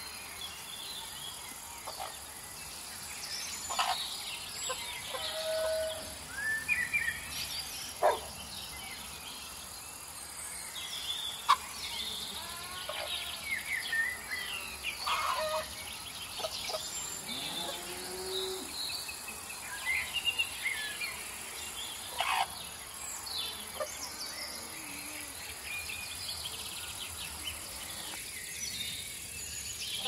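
Morning countryside ambience: many birds chirping and calling in short scattered bursts over a steady high insect buzz.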